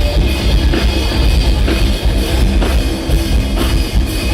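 Heavy rock band playing an instrumental passage: a drum kit pounding under distorted electric guitar and bass, with no vocals.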